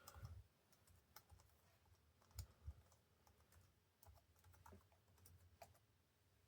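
Near silence with a few faint, irregular clicks, like keys on a laptop keyboard being pressed; the two clearest come close together about two and a half seconds in.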